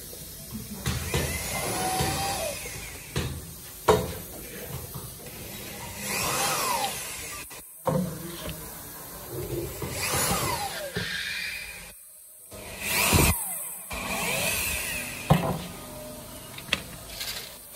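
Cordless drill boring holes in the rim of a black plastic spin-dryer tub. It runs in several short bursts, and its motor pitch rises and falls as the trigger is squeezed and released.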